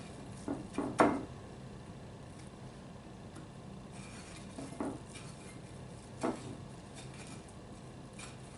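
Light, scattered knocks and taps of a breaded croquette and fingers against a shallow dish while croquettes are rolled in panko breadcrumbs. The loudest knock comes about a second in, and the rest play over a faint steady low hum.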